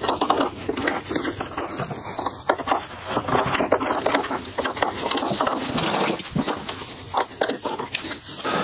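Screwdrivers being pushed one after another into a plastic screwdriver holder: a dense run of small clicks, knocks and scrapes as steel shafts and handles meet the plastic.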